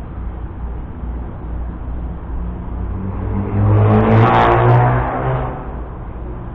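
A road vehicle passes by, its engine and tyre noise swelling to a peak about four seconds in and fading away. Throughout there is a steady low rumble of wind on the microphone.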